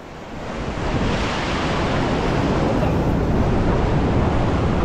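Ocean surf washing over a rock ledge, a continuous rushing wash that builds up in the first second and then holds steady, with wind buffeting the microphone.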